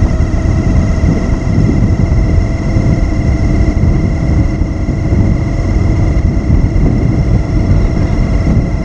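Motorcycle on the move: steady engine and road rumble with a constant thin whine over it.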